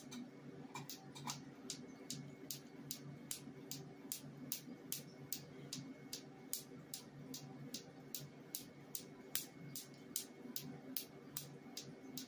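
Q-switched Nd:YAG tattoo-removal laser firing pulse after pulse into tattooed skin: a regular train of sharp snaps, several a second, over a steady low hum.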